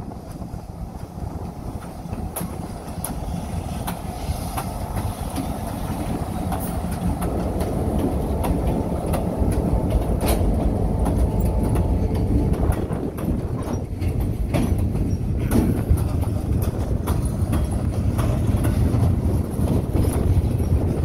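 Diesel freight locomotive passing close by: a deep engine rumble that grows louder over the first several seconds as it draws level, then a string of freight cars rolling past with their wheels clicking and knocking over the rail joints.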